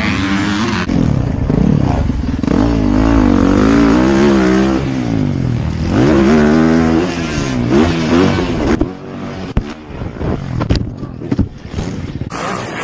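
Dirt bike engine revving up and down, the pitch rising and falling, heard from the rider's helmet camera. About nine seconds in the engine sound breaks off into a run of sharp knocks and scrapes as the bike and rider crash and tumble.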